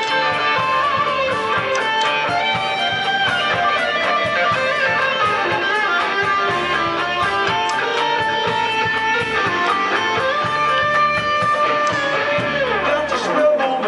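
Band playing an instrumental passage: an electric guitar lead plays long held notes over bass guitar and drums, with sliding, bent notes near the end.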